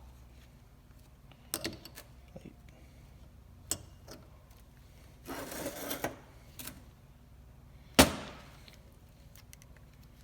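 Steel plates and friction discs of a Trac-Lok differential clutch pack being handled: scattered light clicks, a brief rubbing scrape near the middle, and one sharp metallic clank with a short ring about eight seconds in.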